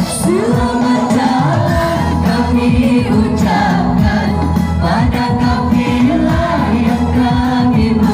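Music with a singing voice over steady accompaniment.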